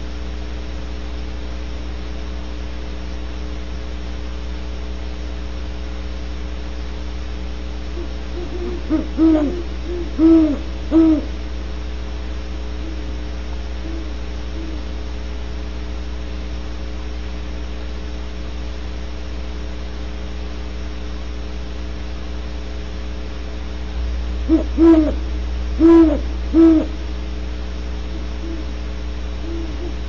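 Great horned owl hooting: two series of four low hoots, a short note followed by longer ones, about fifteen seconds apart, with a few fainter hoots after each series. A steady electrical hum runs underneath.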